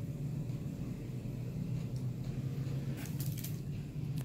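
Quiet room background: a steady low hum, with a few faint clicks about three seconds in.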